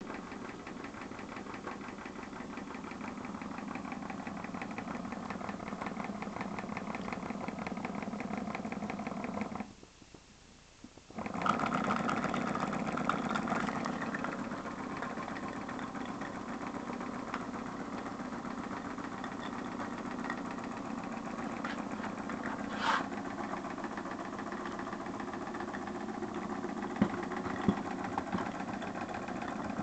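Small brass model steam engine running fast with a rapid, even beat. About ten seconds in it stops for a second and a half, then restarts in reverse, louder at first, and runs on. There is a brief squeal past the middle and a few clicks near the end.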